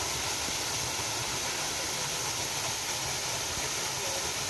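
Waterfall on a mountain creek, water rushing in a steady, dense hiss with no let-up.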